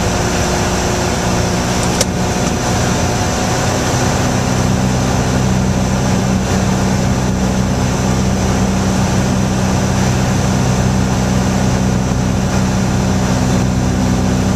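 Piper Warrior III's four-cylinder Lycoming engine and propeller droning steadily in cruise flight, heard inside the cabin, the low drone growing a little stronger about four seconds in. A single brief click sounds about two seconds in.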